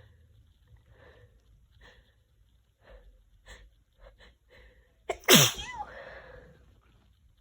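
A woman with a cold taking a series of faint, short breaths, then letting out one loud, messy sneeze about five seconds in, with a short tail that falls in pitch.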